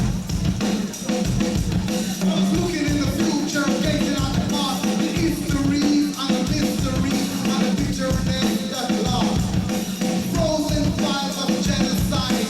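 Live reggae band playing, with a drum kit keeping a steady beat, a heavy bass line and a melodic line moving above them.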